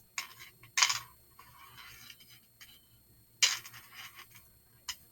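Jewelry tools, pliers and wire cutters, being moved aside and set down on a work table: two louder clacks nearly three seconds apart, with smaller clicks and light scraping between them.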